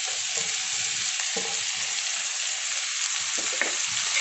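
Chopped spring onions sizzling in hot oil in a metal pan, a steady hiss, with a spatula stirring them and a few light scrapes against the pan.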